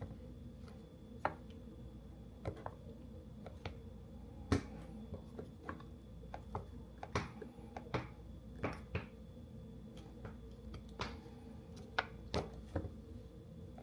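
Irregular light clicks and taps of a plastic squeegee and fingers working over a phone's tempered-glass screen protector, pushing out trapped air bubbles.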